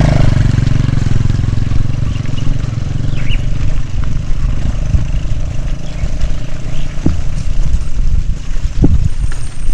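Heavy wind buffeting and road rumble on a moving action camera's microphone, with sharp knocks about seven seconds in and again near nine seconds.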